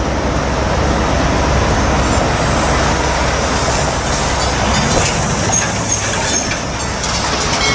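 Plastic wheels of a toy trailer truck rolling over a hard surface: a steady, loud rolling rattle that starts and stops abruptly.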